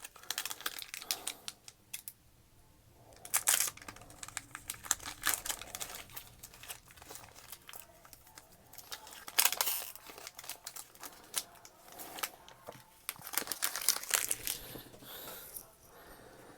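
Foil wrappers of Pokémon card booster packs crinkling and tearing as packs are opened and handled, in irregular crackles with a few louder bursts.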